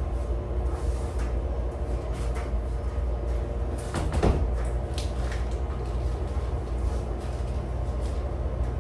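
Steady low rumble of a moving vehicle, with scattered light clicks and rattles and a brief sweeping squeal about four seconds in.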